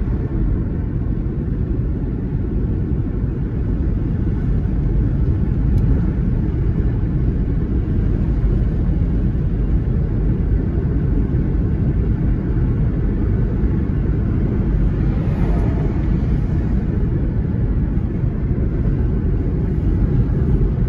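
Steady low rumble of a car's tyres and engine heard from inside the cabin while driving along a road. About three-quarters of the way through there is a brief swell of higher hiss.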